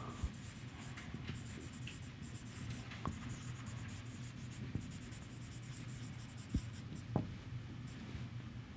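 Marker writing on a whiteboard: faint, quick scratchy strokes as words are written, with a few light taps of the tip on the board.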